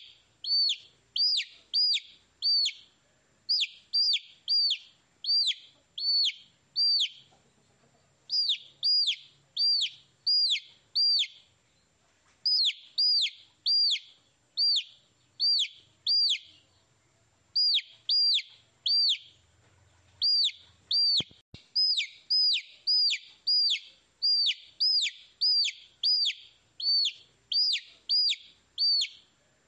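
Domestic baby chicks peeping: loud, shrill chirps repeated at about two a second, in runs of several chirps broken by short pauses.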